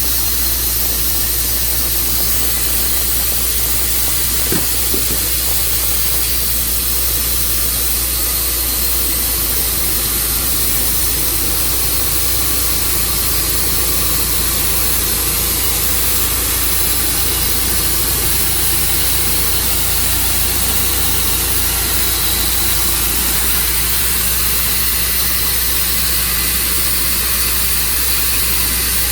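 Tru Cut portable sawmill running steadily under load, its saw cutting through elm with a constant hissing whine over the engine drone.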